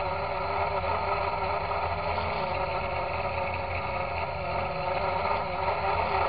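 Electrohub Spider X quadcopter's budget brushless motors and propellers running in flight, a steady whine of several pitches heard from the camera on the frame. The motors are noisy in a way that the owner takes for bad bearings from new.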